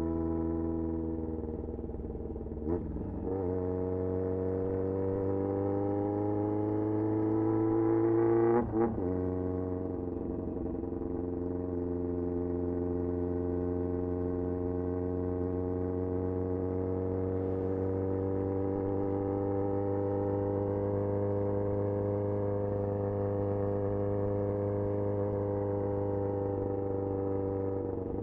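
1994 Yamaha XJR1200's air-cooled inline-four, loud exhaust note while riding. The engine pulls up through the revs with two quick upshifts, about three and nine seconds in, then settles into a steady, low cruising drone that swells and eases slightly.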